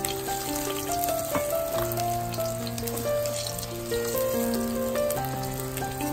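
Anabas (koi) fish frying in hot oil in an aluminium kadai: a faint sizzle with scattered crackles, under background music of slow held notes over a steady bass.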